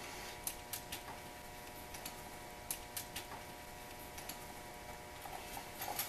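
Faint, scattered clicks and small taps of a GFCI wall receptacle and its black wires being handled as the wires are fitted into its terminals, over a faint steady hum.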